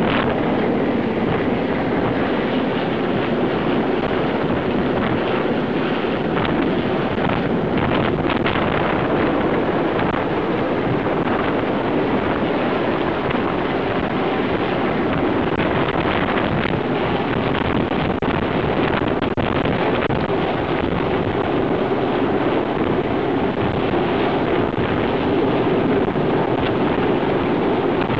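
Royal Navy Sea King search-and-rescue helicopter hovering low overhead during a winch lift: loud, steady rotor and turbine noise, with the rotor downwash buffeting the microphone.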